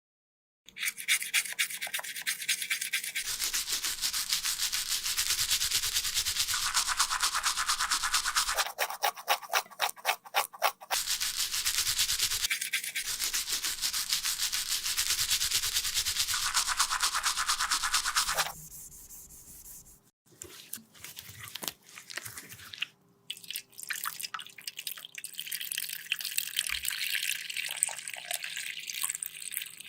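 Fast, rhythmic scraping and rubbing of a tool against a cosmetic product, changing pace briefly about 9 seconds in. It stops about 18 seconds in, leaving softer taps and handling sounds.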